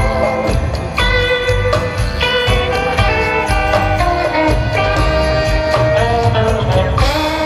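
Live band playing, heard from the audience: sustained keyboard and guitar notes over bass and drums with a steady beat and bright jingling percussion.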